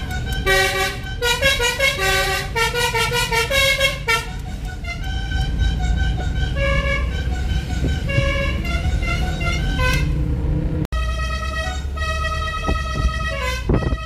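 Multi-trumpet 'basuri' telolet bus horn played as a quick tune of short, changing notes from a piano-style keypad, heard from inside the car over low engine and road rumble. The tune breaks off for an instant about eleven seconds in, and a few notes slide downward near the end.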